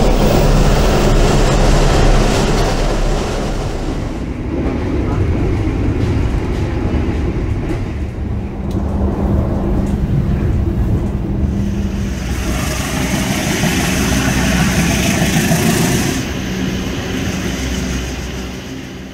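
Train running: a loud, steady rumble with a low hum underneath, growing hissier from about twelve to sixteen seconds in, then fading out at the very end.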